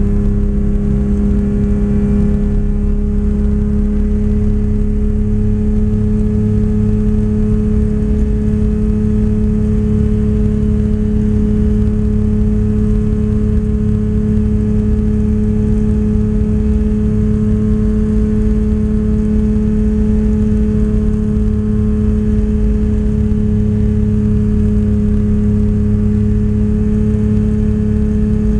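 Kitfox light aircraft's engine and propeller at takeoff and climb power, a loud steady drone heard inside the cockpit, holding one pitch throughout.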